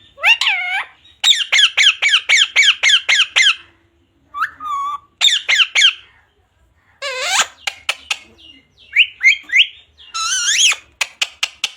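Pet parrot calling in quick runs of short, high-pitched squawks, several a second, broken by brief pauses.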